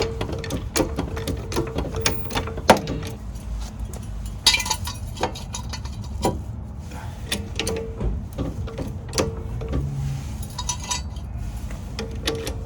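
Cordless impact driver running in short bursts on the van's hub and suspension fasteners, mixed with metal tools clinking and knocking.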